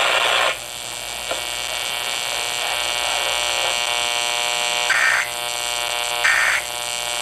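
Emergency Alert System end-of-message data bursts from a broadcast endec, heard over FM radio: two short, identical screeching bursts about 1.3 seconds apart near the end, over a steady electrical buzz. Before them, a noisy hiss cuts off about half a second in.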